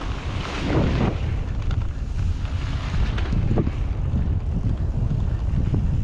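Wind buffeting the microphone during a mountain bike descent, with a steady rumble of tyres over a dirt trail and a few short rattles from the bike.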